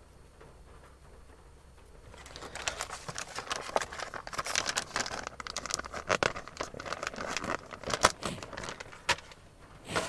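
Clear plastic bait packaging crinkling and rustling as it is handled, starting about two seconds in and going in irregular crackles until just before the end.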